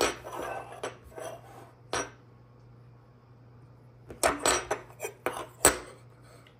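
Metal challenge coins clacking against a wooden tabletop as they are handled. There are a few clacks as one coin is flipped over in the first two seconds, then a quick run of sharper clicks and taps from about four seconds in.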